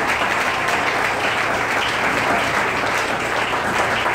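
Congregation applauding: dense, steady clapping.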